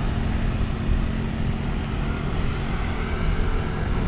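Steady wind and road rumble picked up by a camera moving along with cyclists on a bicycle: a deep, continuous rushing noise with no clear engine note.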